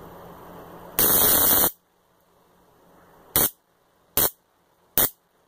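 Handheld 600,000-volt stun stick discharging with a loud electric crackle. The first burst lasts under a second, about a second in, and three short zaps follow about a second apart.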